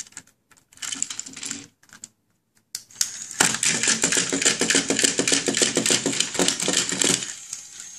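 Battery-powered Chubby Puppies toy dog switched on and waddling, its motor and plastic feet clattering fast on the tabletop: a short burst about a second in, then a longer run from about three and a half seconds in that stops just after seven.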